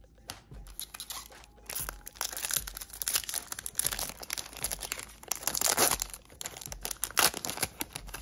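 Foil wrapper of a baseball card pack being torn open and crinkled by hand: a dense, irregular crackling that starts about a second and a half in.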